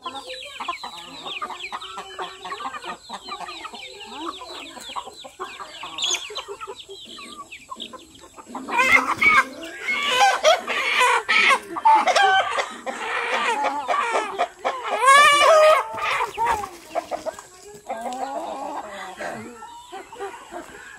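A flock of domestic chickens clucking and peeping while they feed. From about nine seconds in, loud squawking and cackling for several seconds, as a hen is being grabbed.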